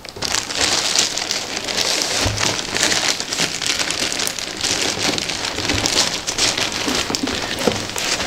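Plastic postal mailing bag crinkling and rustling continuously as a large parcel is handled and turned over, with a dull bump about two seconds in.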